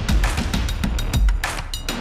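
Background music with a steady drum-kit beat: bass drum and snare hits.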